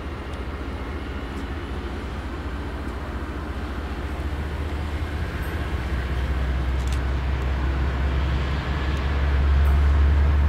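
Diesel locomotive approaching slowly, its engine a deep steady drone that grows louder as it nears, stepping up about nine seconds in.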